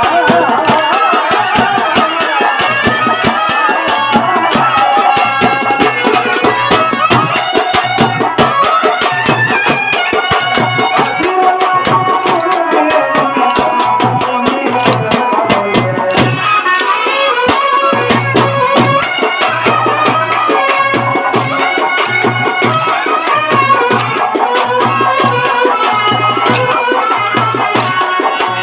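Telugu kolatam folk music with a steady pulsing drum beat and a melody line, loud throughout. Through it run many sharp clicks, the dancers' wooden kolatam sticks struck together in rhythm.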